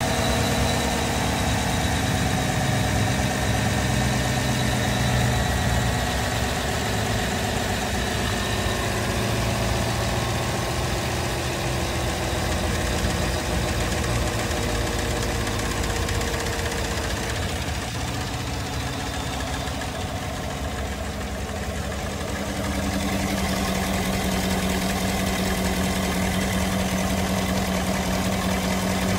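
2016 Chevy Tahoe's 5.3-litre V8 idling steadily, just restarted after a thermostat and coolant temperature sensor replacement to circulate the coolant and check for leaks. A steadier low hum comes up about three-quarters of the way through.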